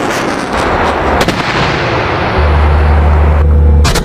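Rocket launch from an M270 multiple rocket launcher: a long, loud rushing noise from the rocket motor. About two and a half seconds in, a heavy low rumble joins it, and both cut off abruptly near the end.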